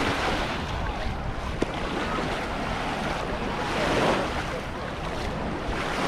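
Small sea waves washing in shallow water at the shoreline, a steady wash that swells briefly about four seconds in, with wind buffeting the microphone.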